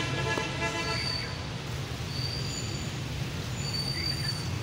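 Steady low traffic hum with a vehicle horn sounding briefly at the start. A few short, thin high-pitched squeals follow later.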